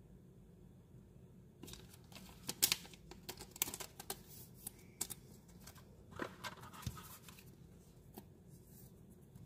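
Thin clear plastic card sleeve crinkling and crackling as a Pokémon card is slid into it and handled: a run of sharp crackles starting under two seconds in and dying away after about seven seconds.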